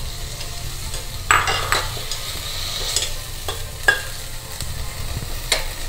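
Chopped beans, carrots, onions and mint sizzling in a stainless steel pot while a steel ladle stirs them, scraping and clicking against the pot several times. A steady low hum runs underneath.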